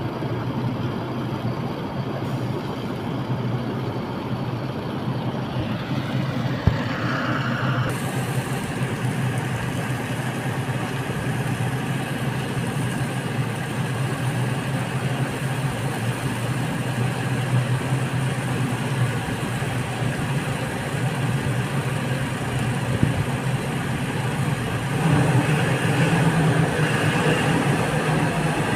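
Heavy diesel engine running steadily, with a single sharp knock about seven seconds in and the engine getting louder near the end.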